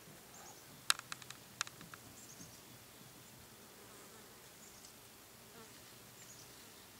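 Faint outdoor quiet with a low insect-like buzz, a quick cluster of sharp clicks about a second in, and faint high chirps now and then.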